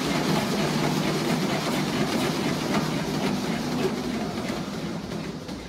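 Curved manual treadmill rumbling and clattering under a sprinter's fast footfalls, a dense run of thuds over a steady rolling rumble that eases slightly near the end.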